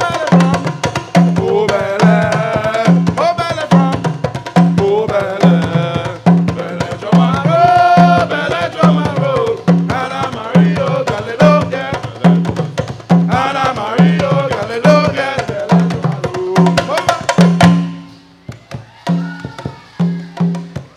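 Hand drums played by a small percussion group, a low drum beating a steady pulse under quick hand strikes, with voices singing over it. Near the end the singing stops and the drumming goes on more softly.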